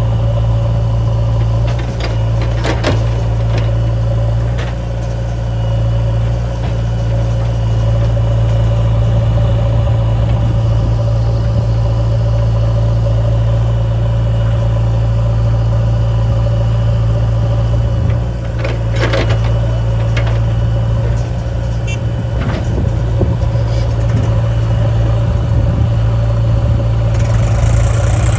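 Heavy diesel engine of the loading machinery running steadily at close range, a constant low drone. A few short knocks break in a couple of seconds in and again about two-thirds of the way through.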